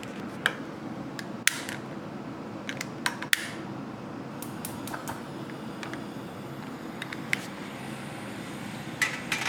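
A gas stove being lit under a pot: scattered sharp clicks and light knocks from the burner knob and igniter, over a steady hum.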